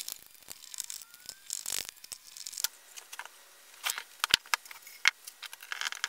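Hand screwdriver driving screws into the pre-drilled soft pine corners of a beehive brood box, giving irregular small clicks and ticks, with a sharper knock about four seconds in.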